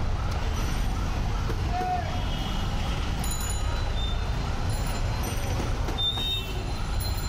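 Busy street ambience: a steady low traffic rumble under background crowd chatter.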